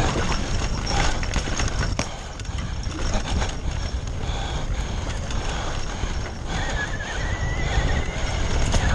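Downhill e-bike descending a rough dirt trail at speed: heavy wind rumble on the helmet camera's microphone, tyres on loose dirt and the bike rattling over bumps with sharp knocks. A thin whine rises slightly near the end.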